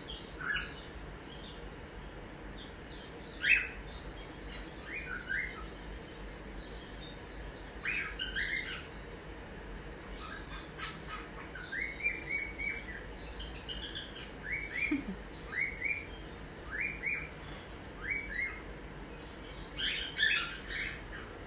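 Cockatiels chirping: scattered short, rising chirps with short runs of repeated notes and one louder call about three seconds in, over a faint steady hum.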